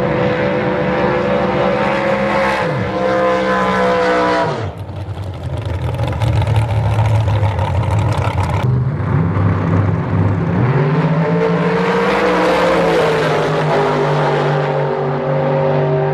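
Big V8 drag-racing engines running loud at high revs, the sound changing abruptly twice. About ten seconds in the pitch climbs for a couple of seconds as two cars launch down the strip.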